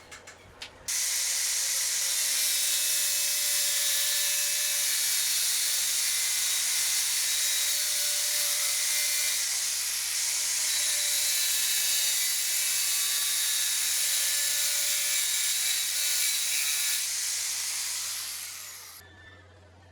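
A power tool running under load on metal: a loud, steady, high hiss that starts suddenly about a second in and dies away near the end.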